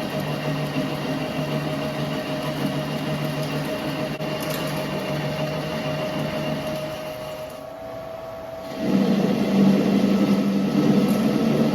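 CNC lathe turning a steel bar, the spindle running with a steady whine while the tool cuts a bell-shaped profile. The cutting gets louder from about nine seconds in.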